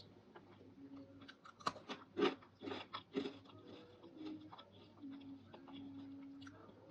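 Close-miked crunching of dried fruit or vegetable pieces: a cluster of sharp, crisp crunches in the middle, then softer chewing and crackles.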